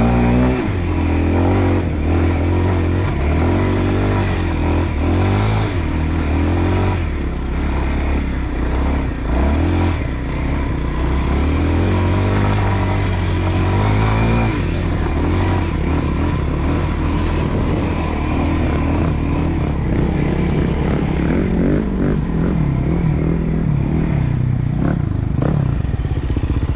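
Enduro dirt bike engine pulling up a trail climb, its revs rising and falling repeatedly with the throttle, then running lower and steadier about halfway through.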